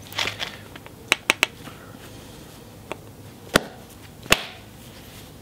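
Copper bopper striking tough cherty mudstone to take flakes off: a quick group of three sharp clicks about a second in, a faint one a little later, then two louder sharp cracks under a second apart.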